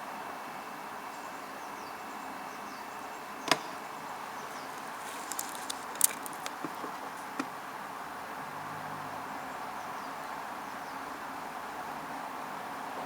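Steady background hiss, with one sharp click about three and a half seconds in and a scatter of smaller clicks a couple of seconds later.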